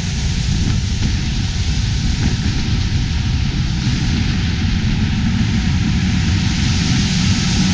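Heavy farm machinery's diesel engine running steadily, a deep rumble under a strong, even rushing hiss.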